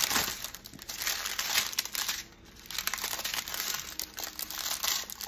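Clear plastic packaging crinkling as it is handled: the film over a diamond-painting canvas and small plastic bags of crystal drills. The crinkling is irregular and pauses briefly a little after two seconds in.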